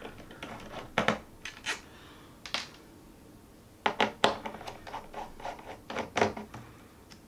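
Irregular sharp clicks and light taps of a small screwdriver working on screws and connectors of an opened 2013 iMac's logic board, with the odd scrape.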